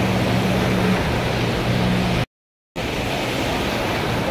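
Steady rushing noise of the sea surf washing over the shallows, with a low steady hum in the first half. The sound cuts out completely for about half a second a little over two seconds in, then the surf noise resumes.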